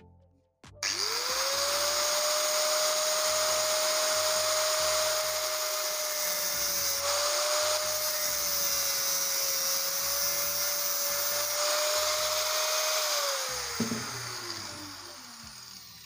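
Angle grinder spinning up about a second in and cutting a slot into a metal pipe bushing clamped in a vise: a steady high whine with a grinding hiss. It is switched off near the end and winds down with a falling whine, over low background music.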